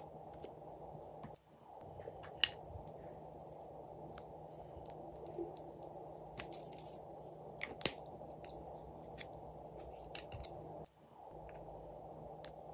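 Small plastic bottles and caps handled and opened, giving scattered sharp clicks and taps, the loudest about eight seconds in, over a steady low background noise.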